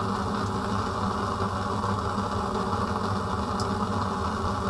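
Steady roar of a Bunsen burner running on a blue flame, mixed with the even hum of the fume cupboard's extraction fan.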